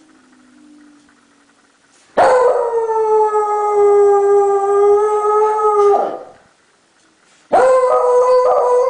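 Dog howling in response to a tornado siren test: one long howl at an almost steady pitch lasting about four seconds, then, after a short pause, a second howl that wavers in pitch.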